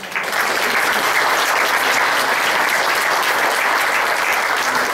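Applause from a small audience and council members in a hall: dense, steady clapping that breaks out suddenly at the start and keeps going.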